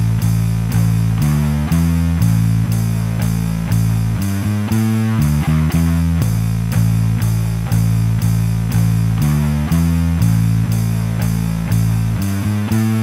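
Background music led by guitar, with a steady beat and a bass line.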